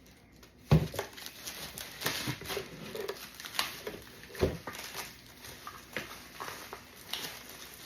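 Parts and packaging of an unboxed ab roller being handled: a scatter of light knocks, clicks and rustles, with a sharper knock just under a second in and another about four and a half seconds in.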